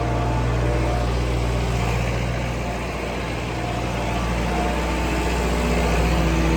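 A farm machine's engine running steadily at a constant speed.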